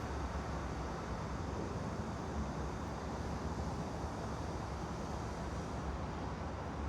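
Steady white-noise ambience with a low rumble underneath, unchanging throughout.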